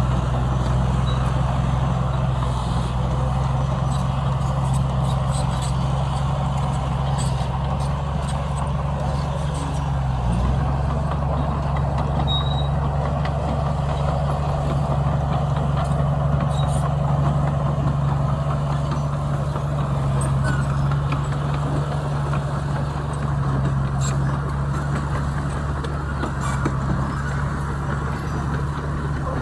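Heavy construction machine's diesel engine running steadily, with a brief dip in pitch about ten seconds in.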